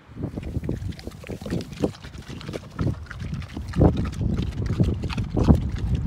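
A Berkshire sow eating pumpkin: wet chewing and crunching with irregular clicks, and a few louder bursts about four and five and a half seconds in.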